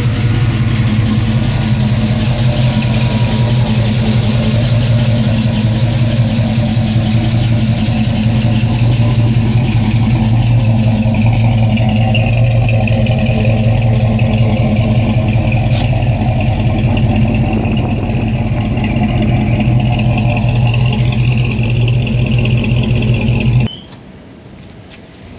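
1971 Chevrolet C10 pickup's engine idling steadily, with no revving. It cuts off abruptly near the end.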